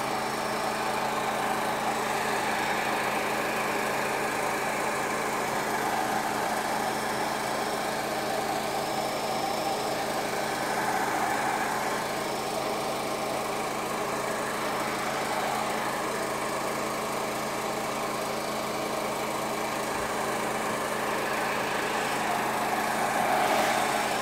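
Hose-fed airbrush spraying red paint in a steady hiss over the constant hum of the small air compressor that feeds it.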